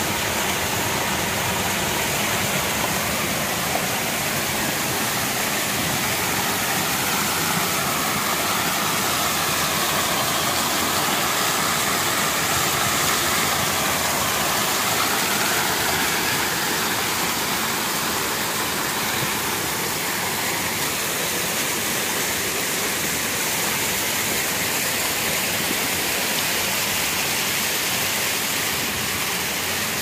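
Fountain water splashing into a pool: a steady rush of falling water from the jets and a water wall.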